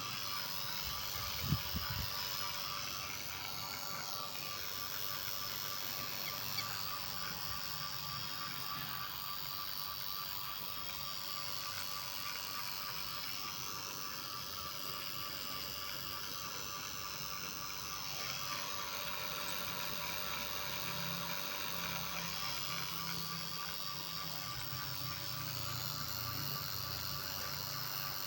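Vacuum pump running steadily with an even whine while evacuating a refrigerator's sealed refrigerant system, with a short knock about a second and a half in.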